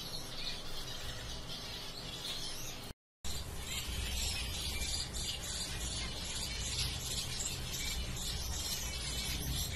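Zebra finches chirping: a dense, overlapping run of short, high chirps, with a steady low rumble underneath. The sound cuts out completely for a moment about three seconds in, then the chirping carries on.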